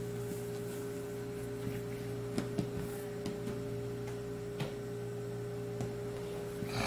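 A steady machine hum, with a few faint soft taps and a brief rub near the end as dough is rolled and set down on a stainless steel table.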